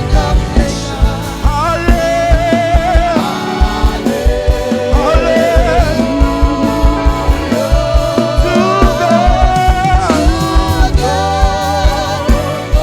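Live gospel praise music: a band with drums keeping a steady beat, under voices singing long held notes.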